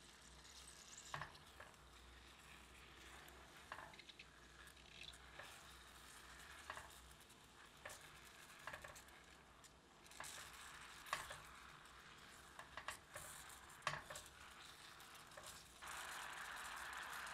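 Blueberries in sugar and lemon juice cooking in a small saucepan: a faint sizzle, with scattered sharp taps and scrapes of a spatula stirring against the pan. Near the end a sudden, steadier and louder hiss as the fruit syrup bubbles at a boil.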